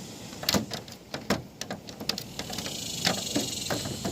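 Sharp clicks and knocks from handling an air conditioner unit as its plastic vents are pulled off, with a steady high hiss in the last second and a half.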